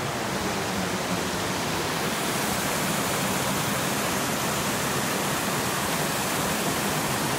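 Waterfall: whitewater rushing steadily over rock ledges, an even, unbroken rush of water.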